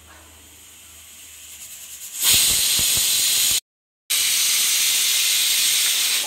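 Stovetop pressure cooker venting steam through its weight valve: a loud hiss starts about two seconds in, with a few low knocks as the weight lifts. The hiss breaks off briefly near the middle, then continues. This is the cooker's whistle, the sign that it has come up to pressure.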